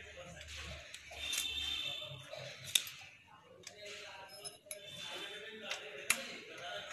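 Small metallic clicks and clinks of hand tools on a bicycle's front derailleur: pliers gripping the steel gear cable and a spanner working on the cable clamp bolt. A few sharp clicks stand out, the loudest about six seconds in.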